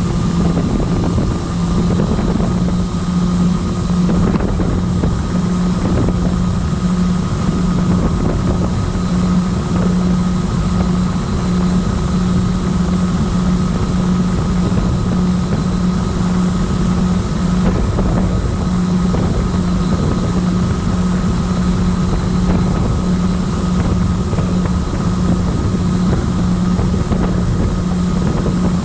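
The electric motors and propellers of a twin-motor MyTwinDream FPV model plane running steadily in flight, heard from the onboard camera: a loud low hum with a faint whine above it and a rushing noise.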